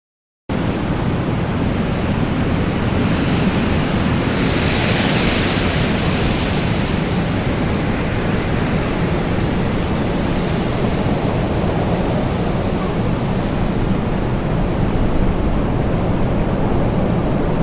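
Strong wind sound effect: a steady rushing noise that cuts in suddenly about half a second in, swelling in its higher range around five seconds in.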